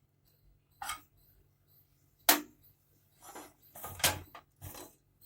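Pressure cooker lid being opened after the cooker has whistled: a few sharp metal clicks and clunks, the loudest about two seconds in, then a quicker run of smaller knocks near the end.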